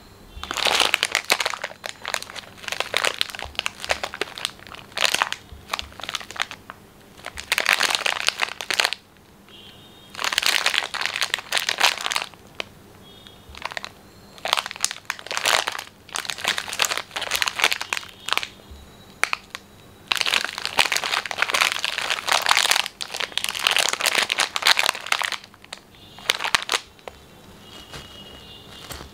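Plastic wrapper of a packet of Belleame digestive biscuits crinkling as hands squeeze and turn it, in irregular spells of one to a few seconds with short pauses between.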